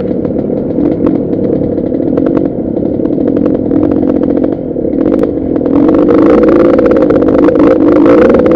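KTM enduro dirt bike engine running at low throttle over a rough grass track, with many short clattering clicks from the bike over the bumps. About six seconds in, the engine grows louder.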